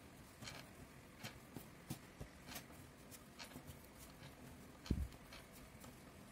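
Soft scattered taps and rustles of hands working dough and a plastic cup being pressed on a floured board, with one louder low thump about five seconds in.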